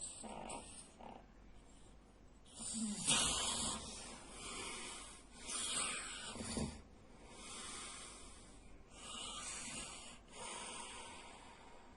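A sleeping man snoring loudly, with a string of noisy breaths. The two strongest snores come about three seconds in and again around six and a half seconds, and lighter hissing breaths follow.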